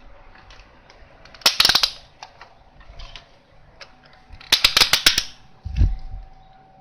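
Two quick runs of sharp clicks and clatter, about a second and a half in and again near five seconds, from hard plastic parts and tools being handled on a workbench, with a dull thud just before the end.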